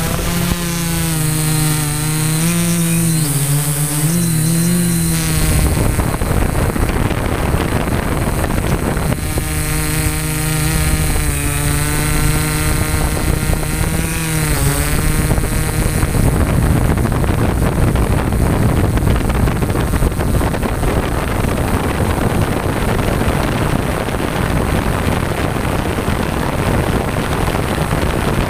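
DJI S800 hexacopter's electric motors and propellers humming, the pitch wavering as it lifts off and steadies, over the first five seconds and again for several seconds in the middle. For the rest, a steady rush of wind over the onboard camera's microphone in forward flight mostly covers them.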